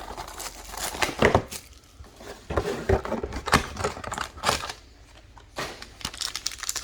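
Hands handling trading-card boxes and packs on a table: scattered taps, knocks and scrapes of cardboard, with a quieter stretch about two-thirds of the way through.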